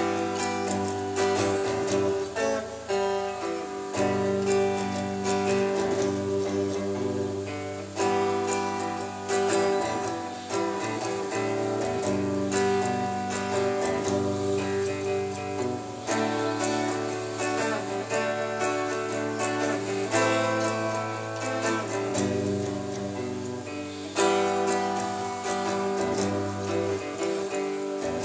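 Guitar strumming chords in an instrumental passage with no singing, the chords changing every few seconds.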